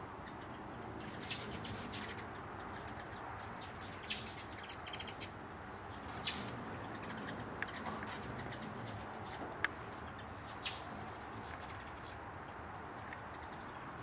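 Hummingbirds chipping and chittering around nectar feeders: short, high, sharp calls scattered throughout, some in quick runs of several. A steady high-pitched insect drone runs underneath.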